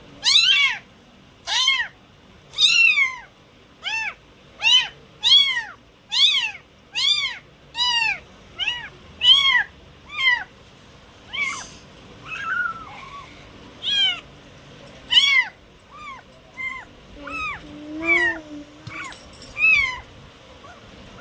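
Kitten meowing over and over, short high-pitched calls that rise and fall, about one a second, getting softer and more irregular in the second half.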